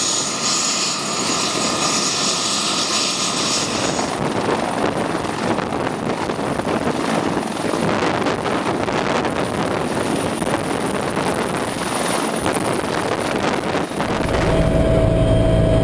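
Bell 412 helicopter running loud as it lifts off and hovers: turbine whine and rotor noise. The sound changes abruptly about four seconds in, to a rougher fluttering rotor noise, and again near the end, to a steadier low drone.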